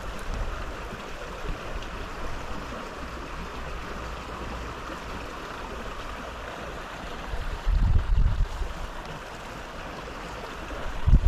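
River water flowing steadily. Low buffets of wind on the microphone come about eight seconds in and again near the end.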